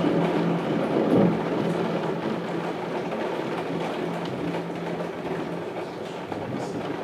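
Thunder rolling and slowly fading away, over steady rain and wind noise with small ticks of drops. A low steady hum runs under it and stops about two-thirds of the way in.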